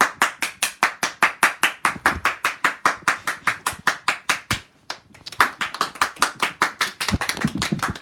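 Hands clapping in a steady quick rhythm, about five claps a second, with a short break just past halfway before the clapping starts again.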